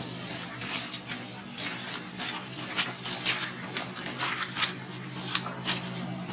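Dry leaf litter crackling and rustling in irregular short bursts as macaques move over it, with a faint low steady hum underneath.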